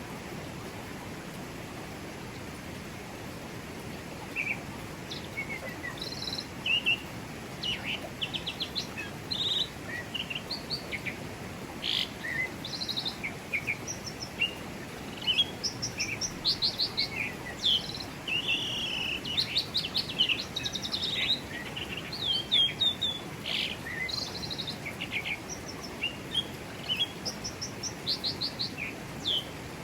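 Steady rushing flow of a forest river, with many birds chirping and trilling over it from about four seconds in.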